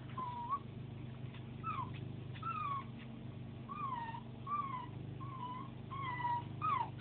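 A 9-week-old corgi puppy whining: about eight short, high cries, some falling and some rising then falling in pitch. It is crying in distress at being left on its own.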